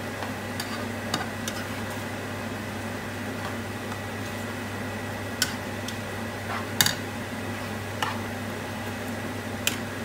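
A plastic spatula stirring a wet pork mince sauce in a non-stick frying pan, with several short clicks and taps of the spatula against the pan, over a steady low hum.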